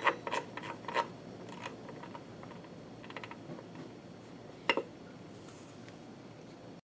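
Soft clicking from the rotary encoder knob on a 3D printer's LCD controller as it is turned to adjust a value, a quick run of detent clicks that thins out over the first few seconds. One louder click comes near the end as the knob is pushed to confirm the setting, and the sound cuts off suddenly just before the end.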